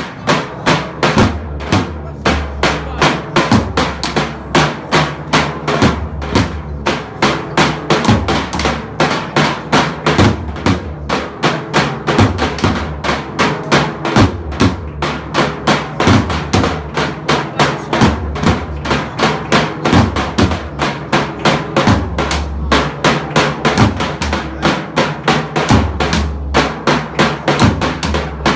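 Turkish davul drums beaten in a fast, steady rhythm, about four to five strokes a second.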